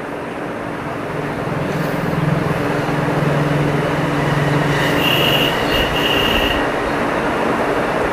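A steady mechanical rumble with a low hum that builds over the first couple of seconds, with a high-pitched whine in two short stretches about five to six and a half seconds in.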